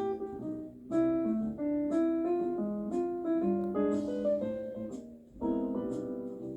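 Background piano music, notes and chords played at a gentle pace, with a short pause about five seconds in.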